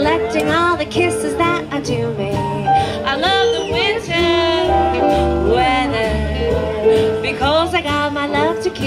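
Live small jazz band playing a song: a melody line over upright bass notes and electric keyboard, with a saxophone in the band.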